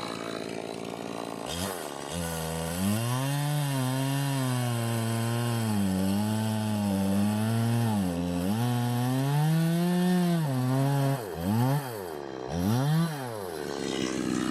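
Chainsaw revving up about a second and a half in and cutting into a walnut log, its engine speed wavering under load. Near the end it is blipped twice, rising and falling sharply, before dropping back.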